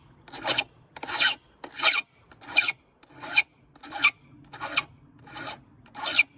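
A hand file rasping across the teeth of a chainsaw chain in steady, even strokes, about nine of them, roughly one every 0.7 seconds: the chain being sharpened by hand.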